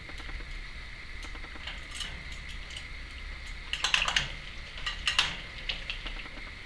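Timneh African grey parrot bathing in her water bowl: scattered splashes and light taps against the bowl, with a flurry about four seconds in and another about five seconds in.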